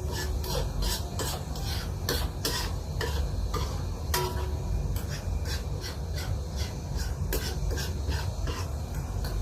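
A cooking utensil stirring and scraping in a pan, making irregular clicks and scrapes a few times a second over a steady low rumble.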